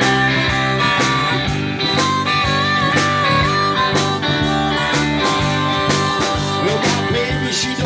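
Live blues-rock band playing a harmonica solo, the harmonica cupped against a vocal microphone, with wavering, bent notes over electric bass, electric guitar and a steady beat.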